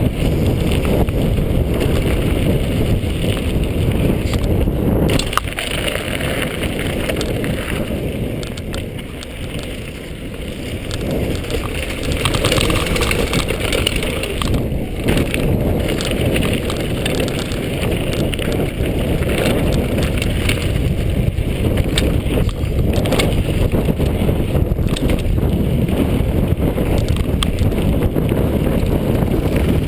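Mountain bike descending a gravel trail: wind rushing over the chest-mounted camera's microphone and the tyres rolling over gravel, with frequent knocks and rattles from the bike over bumps. It dips quieter for a few seconds about a third of the way in, then picks up again.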